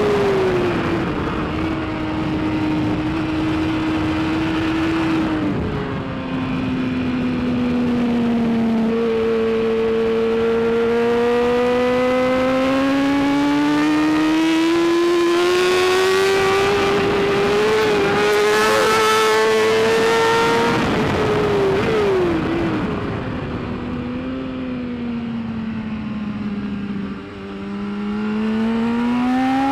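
BMW S1000RR inline-four superbike engine at racing speed, its revs climbing and falling several times through the gears, with a short dip and a quick climb near the end.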